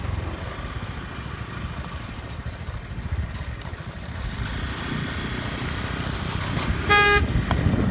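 Motor scooter engine running with low rumble from riding over a rough dirt track. A short beep sounds near the end.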